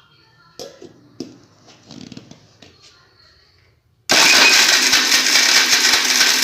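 A few light knocks as the jar is handled, then about four seconds in an electric mixer grinder switches on suddenly and runs loudly, grinding chunks of jaggery.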